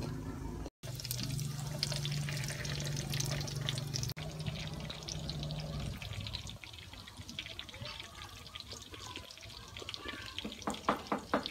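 Hay mushrooms deep-frying in a pan of hot oil, sizzling and crackling over a low hum. About halfway the hum stops and the sizzle goes fainter. Near the end come a few crisp crunches as a fried mushroom is bitten and chewed.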